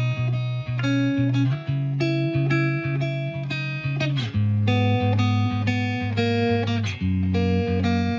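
Background music: a plucked guitar playing a run of quick, evenly spaced notes over a steady bass line.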